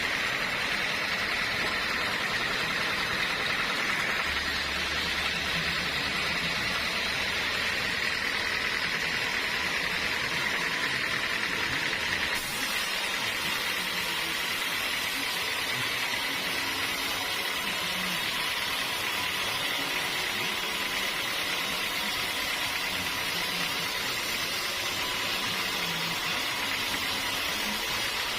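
Sawmill machinery running steadily with a constant whine. About twelve seconds in, the sound shifts abruptly and becomes brighter and hissier.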